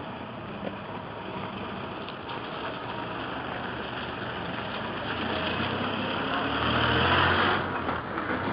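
Road traffic noise, engines and tyres running steadily, swelling as vehicles come close about seven seconds in, then dropping away suddenly near the end.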